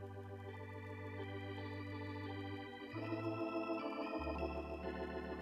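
Organ music playing sustained chords over held bass notes, with the chord changing about three seconds in and again a second later.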